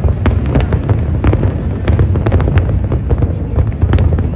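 Fireworks going off in quick, overlapping succession: many sharp cracks and bangs over a continuous low rumble of booms.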